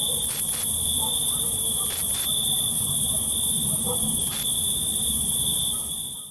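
Crickets trilling: one steady, unbroken high-pitched note over a higher insect hiss, with a few brief sharp clicks or chirps. The sound fades out at the very end.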